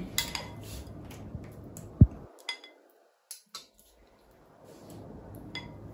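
A metal spoon clinking and scraping against a glass bowl and a metal baking tray as sauce is spooned out. A few light clinks and one sharp, low thump come about two seconds in, then a short near-silent gap.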